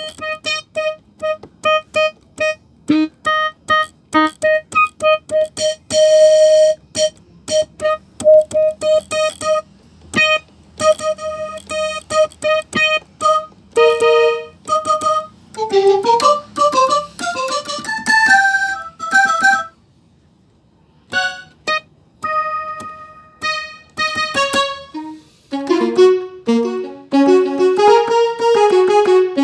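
Casio LK-57 electronic keyboard playing a preset tone: one note struck over and over in short staccato hits for about the first half, then short melodic runs. After a brief pause about two-thirds through come more repeated notes, and near the end a flowing melody in a lower range.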